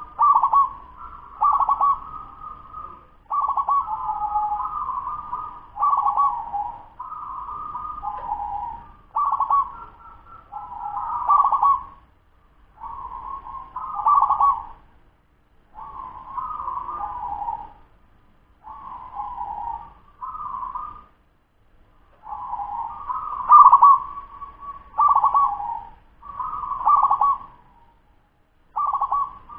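A ten-month-old zebra dove (perkutut) cooing: a fast, repeated run of short rolling coo phrases, one after another, with a few brief pauses.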